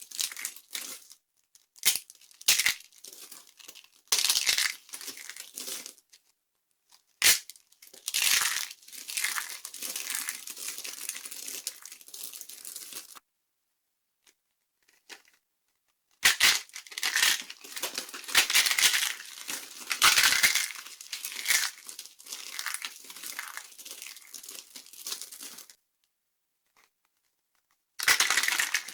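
Dry soap being crushed and crumbled: bursts of crisp crackling and crunching with a few sharp snaps, broken by short pauses.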